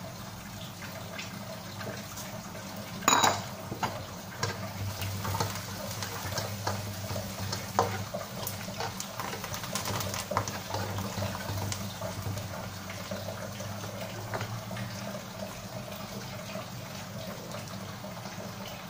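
Sliced onions, garlic, curry leaves and dried chillies frying in hot oil in a wok: a steady sizzle scattered with small pops and crackles. There is a louder burst of sizzling about three seconds in, as the dried chillies go into the oil, and then stirring with a spatula in the pan.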